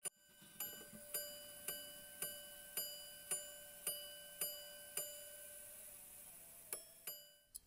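Clock-tick sound effect: about ten evenly spaced metallic ticks, roughly two a second, each leaving a bell-like ring. After a short pause come two quicker ticks near the end, then it cuts off suddenly.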